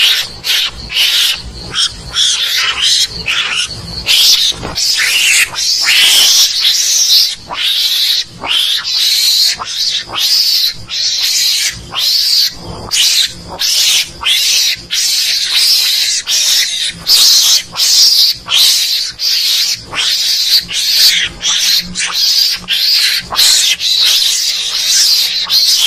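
Mongoose calls from a hunting lure recording: a rapid, unbroken run of short, high-pitched chattering calls, about two or three a second.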